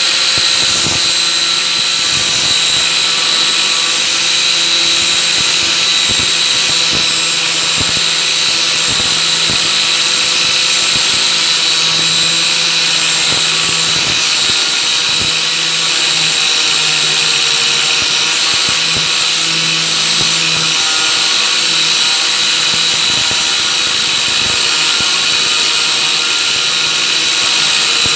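Angle grinder running steadily with a continuous whine while cutting through small microwave fan motors.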